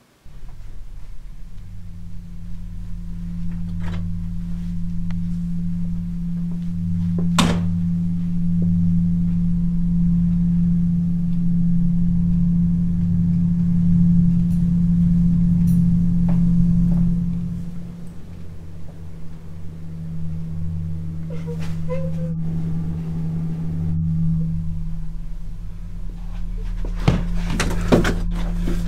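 Low, steady droning hum from a horror-film score. It starts suddenly and eases slightly a little past halfway. A sharp click comes about seven seconds in, and a few clicks come near the end.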